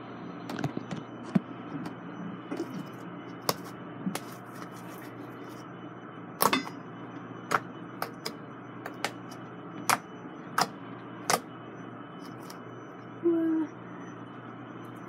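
Homemade glue slime, made with Tide detergent as the activator, being kneaded and stretched by hand, giving sharp irregular clicks and pops about a dozen times. A brief low hum sounds near the end.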